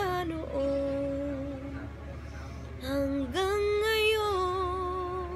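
A young woman singing long held notes with no clear words, sliding up into each phrase; the last note is held for about two seconds and wavers near its end.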